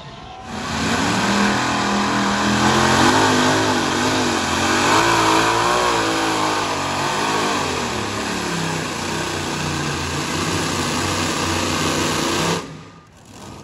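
Modified pulling tractor's engine running at full throttle under load while dragging a sled, its pitch wavering up and down as the engine speed rises and falls; it cuts off suddenly near the end.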